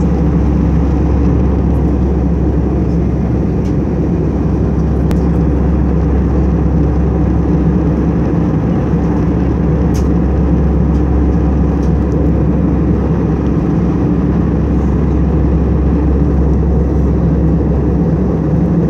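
Steady, deep cabin drone of a jet airliner in cruise flight: engine and airflow noise heard from a window seat inside the cabin, with a few faint clicks.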